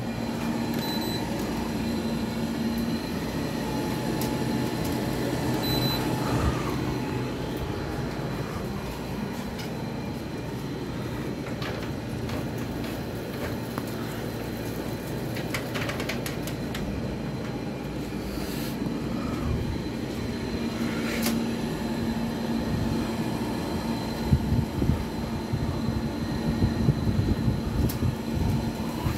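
Window air conditioner running: a steady fan rush over a constant low hum. A few low thumps come near the end.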